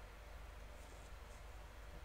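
Quiet room tone: a steady low hum and faint hiss, with a couple of faint soft rustles about a second in.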